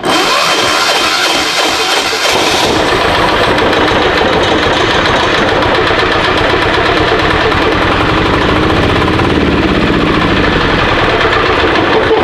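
Titan 7500 diesel generator's single-cylinder diesel engine running steadily and loudly, on its first run after air was bled from the fuel lines to the injector.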